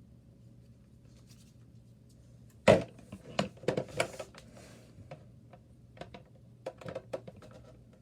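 Handling noise: one sharp knock about three seconds in, then a quick run of clicks and light knocks, and a few more clicks near the end. A low steady hum runs underneath.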